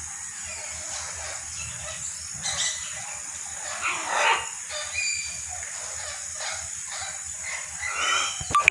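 A few short animal calls, the loudest about four seconds in and a quick cluster near the end, over a steady high-pitched hiss.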